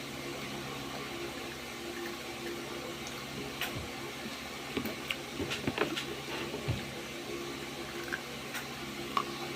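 Scattered short wet clicks and smacks of eating, chewing sugar-coated fried banana (banana cue), mostly in the middle of the stretch, over a steady room hum.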